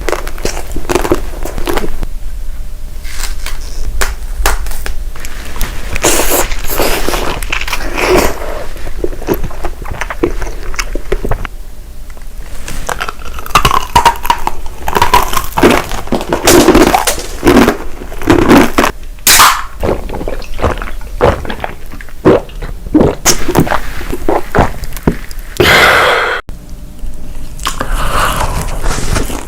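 Close-miked ASMR eating: repeated cracks and crunches of biting into and chewing crisp food.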